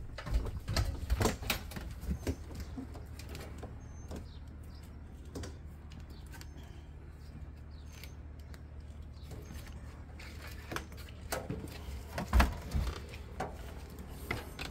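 Footsteps walking through a fifth-wheel camper and down its entry steps: irregular knocks and thuds over a steady low hum, the loudest thump about twelve seconds in.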